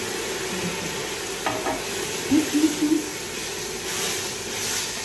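Hot toasted risotto rice sizzling and steaming in a stainless steel pot as white wine hits it, stirred with a wooden spoon. A few brief louder sounds come around the middle.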